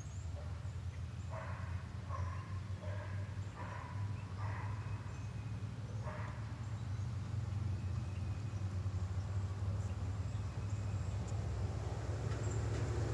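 Steady low outdoor rumble that grows louder near the end, with about half a dozen short animal calls in the first half, each well under a second apart.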